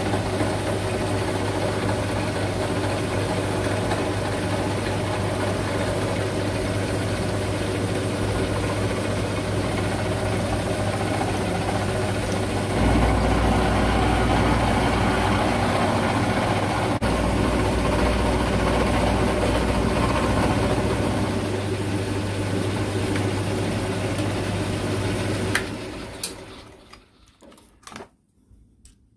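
Milling machine running an end mill through an aluminium block: a steady machine hum and cutting noise that grows louder for several seconds in the middle. About three and a half seconds before the end the machine is switched off and runs down, followed by a few light clicks.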